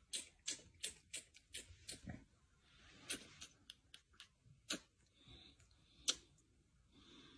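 Pumpkin seed shells being cracked open with the fingers: faint, sharp clicks, about three a second for the first two seconds, then sparser, with a louder crack about six seconds in.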